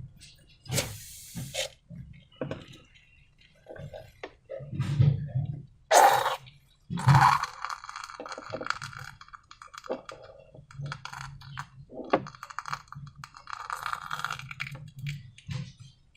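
Slime and balloons being handled, with irregular squelches, clicks and crackling. The sharpest knocks come about six and seven seconds in, and crackly stretches follow after them and again near the end.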